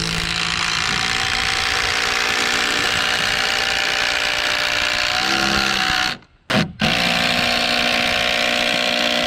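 Ryobi cordless impact driver hammering a long washer-head timber screw into a log beam. It runs for about six seconds, stops briefly, then starts again and keeps running.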